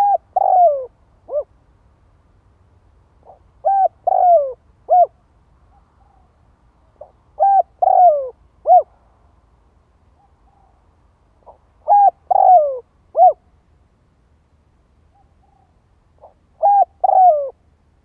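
Spotted dove singing its cooing song: five phrases about four seconds apart, each a faint lead note and then three coos, the second longest and falling in pitch. It is the decoy bird's call, used to draw wild doves in.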